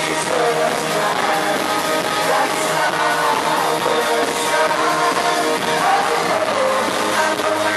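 Live pop music: a band playing with singing voices over a steady beat.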